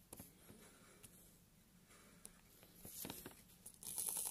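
Faint taps of a diamond-painting drill pen picking up resin drills and pressing them onto the canvas. From near the end, a louder rattle of many small plastic drills jostling in a plastic drill tray.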